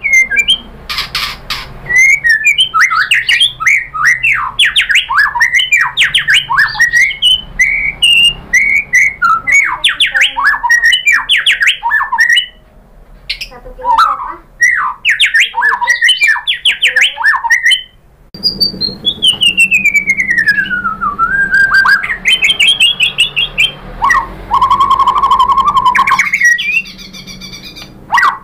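White-rumped shama singing loudly in rapid runs of varied, chattering phrases, its song packed with mimicked 'isian' phrases of other birds. About two-thirds of the way in, it gives one long falling whistle, then rising notes and a steady trill.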